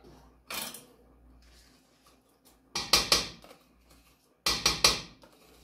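A spoon clinking and scraping against a steel pot and a plastic yogurt tub as the yogurt is emptied onto chicken. One clack about half a second in, then two quick runs of three sharp clinks, around three seconds in and near the end.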